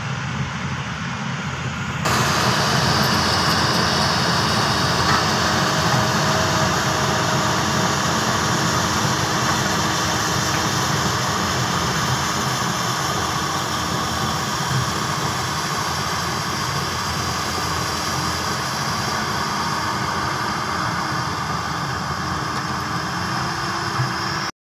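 Diesel engine of a Hyundai crawler excavator running steadily. For the first two seconds it is a low rumble; about two seconds in it turns abruptly louder and fuller, then holds steady.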